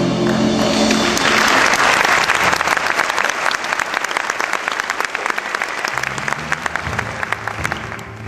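Audience applauding, the clapping strongest a second or two in and thinning out toward the end. About six seconds in, instrumental music with low bass notes starts up under the clapping.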